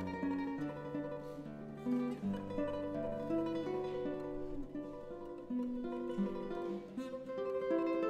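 Solo Rohan Lowe classical guitar played fingerstyle: a continuous stream of plucked notes, the pitches changing every fraction of a second.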